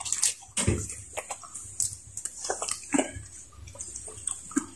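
Close, wet eating sounds: chewing, lip smacks and finger-licking, as a series of short sharp clicks, with a couple of brief low murmurs.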